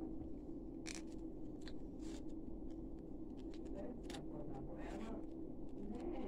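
Faint scattered clicks and scrapes of a small flexible tripod phone stand being handled and adjusted by hand, over a steady low hum.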